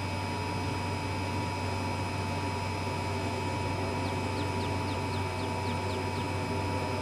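Steady hiss and low hum with a few constant tones. About four seconds in comes a quick run of about eight short, high, falling chirps lasting about two seconds.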